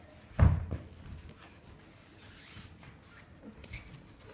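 One short, heavy thud about half a second in, then faint shuffling of bare feet and bodies on the ring mat.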